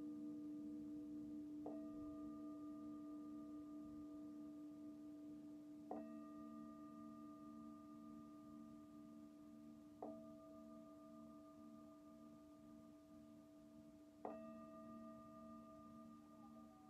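Singing bowls ringing quietly: a sustained low hum with a slow wavering beat under it. A soft mallet strike about every four seconds, four in all, adds higher ringing tones that fade between strikes.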